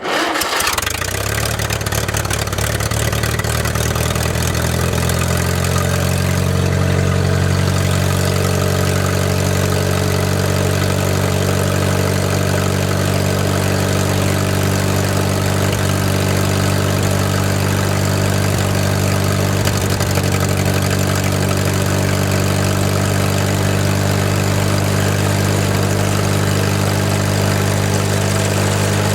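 Old Hobart engine-driven welder's engine, back in use after sitting 15 years, firing up suddenly and catching. It picks up speed over the first few seconds, then runs at a steady speed.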